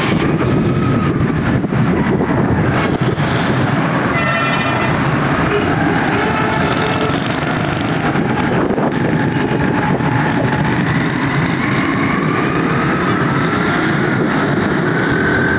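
A motor running steadily under a heavy rushing noise, as heard while travelling, with a brief high pitched tone about four seconds in.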